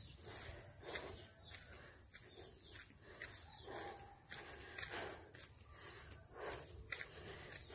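Steady high-pitched buzz of insects in the vegetation, with footsteps crunching on a dirt path about twice a second.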